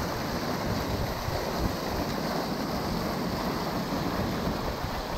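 Small waterfall spilling over a concrete wall, a steady, even rush of water.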